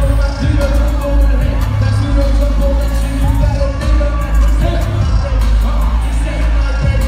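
Live hip-hop song played loud through a concert PA: a heavy bass beat with a performer's vocals over it, heard from within the crowd.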